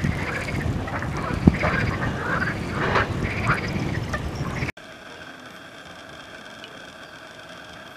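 A loud chorus of overlapping calls from waterside animals, with one sharp knock about one and a half seconds in. The chorus cuts off abruptly a little past halfway and gives way to a quieter steady hum with faint constant tones.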